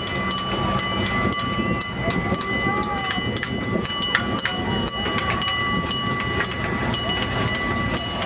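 Gasoline-powered miniature train running along its track: a rapid, even clicking about four times a second over a steady high whine and a low rumble.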